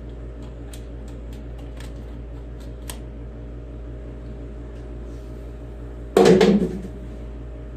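Light clicks and taps from handling a plastic quart oil bottle, then a loud hollow clunk a little after six seconds in as it is set or tossed down, over a steady background hum.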